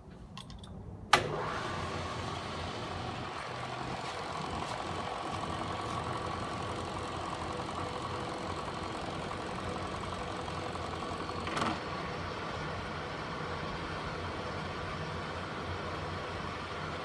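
Hardinge horizontal milling machine running: a sharp click about a second in as the drive engages, then steady machine running with a high whine, and a second click about two-thirds of the way through.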